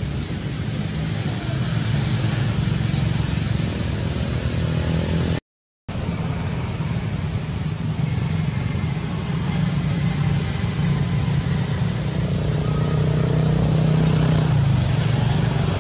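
Steady low rumble like motor-vehicle traffic, with a brief complete dropout of sound about five seconds in.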